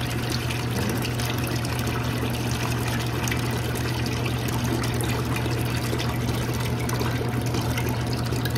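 Used deep-fryer oil draining from the fryer's drain pipe and pouring steadily into a bucket of old, blackened oil, a continuous splashing stream. A steady low hum runs underneath.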